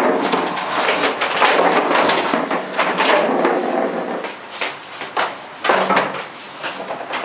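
Knocks and clatter of several people moving about a small room, with a plastic chair being lifted and moved.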